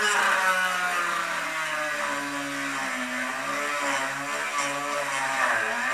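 Small handheld rotary tool running with a fine drill bit, drilling a hole through the rim of a clear plastic dome. Its motor whine drops in pitch over the first couple of seconds as it takes load, then holds with small wavers.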